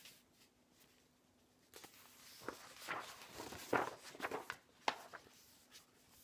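Paper pages of a picture book being handled and turned. A rustle starts after a quiet second or two and carries a few sharp paper snaps, then dies down near the end.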